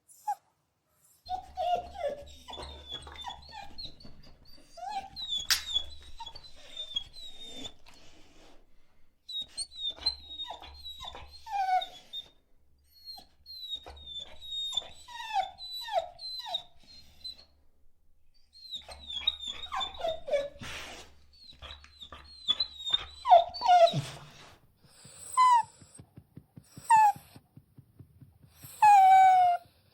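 Dogs whining and whimpering: a string of short, high-pitched whines, many sliding down in pitch, in several separate stretches with brief pauses between. Near the end come three louder, drawn-out cries.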